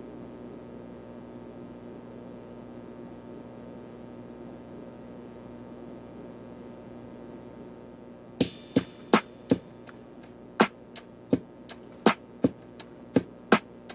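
Background music: a faint steady hum, then about eight seconds in a sharp clicking drum-machine beat starts, about three hits a second.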